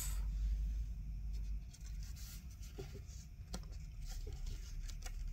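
Faint rustling of a glossy paper booklet being handled and its pages flipped, with a few light ticks, over a low steady hum.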